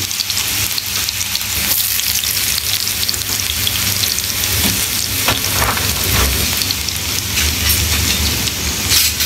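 Minced garlic frying in hot oil in a pan, a steady sizzle with fine crackling as the garlic is toasted.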